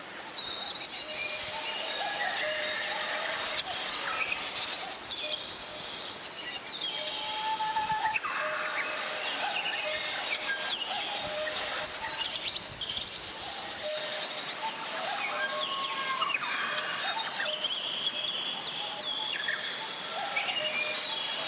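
Valley stream flowing steadily, with many small birds chirping and calling over the water throughout.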